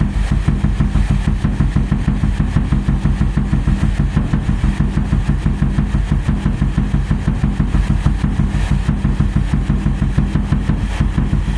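A vehicle engine idling steadily, with a fast, even throb.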